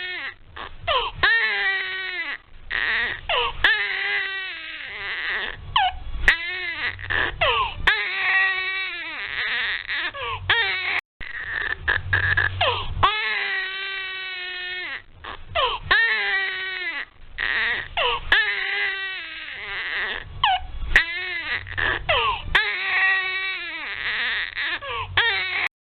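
A baby crying hard: a string of loud wails, many falling in pitch at the end, each broken off by a quick gasp for breath.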